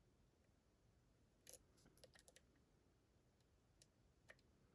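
Faint metallic clicks of a lock pick and tension tool working the pin tumblers of a DORMA DC500 lock: a short cluster about a second and a half in, then two single ticks near the end, otherwise near silence.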